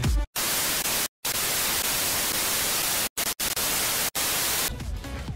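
TV static hiss, a 'no signal' sound effect laid over a colour-bar test screen. It cuts out to silence for a moment about a second in and three more times between three and four seconds in, then stops shortly before the end.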